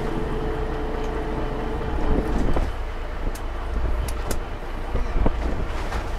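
A fishing boat's engine running steadily, a low constant sound, with a few sharp clicks around the middle.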